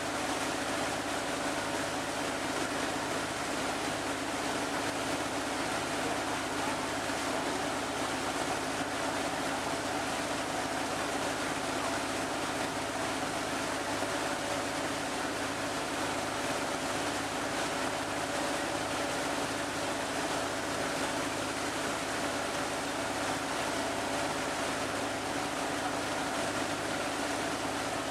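River boat under way: its engine runs with a steady drone, mixed with the constant rush of water along the hull.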